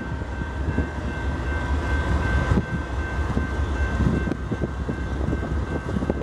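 Diesel locomotives running light, a low steady rumble, with a thin steady high tone over it and scattered knocks.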